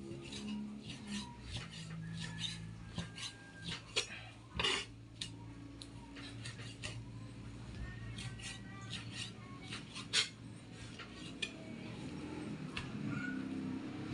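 Kitchen knife slicing pork shoulder into small pieces: irregular sharp knocks and clicks of the blade against the cutting board.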